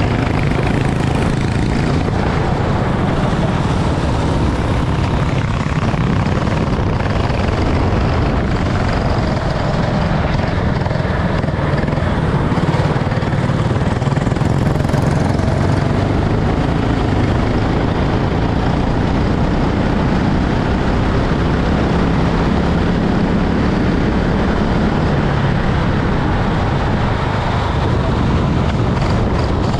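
Go-kart engine running at racing speed under a dense, steady noise, its pitch rising and falling faintly.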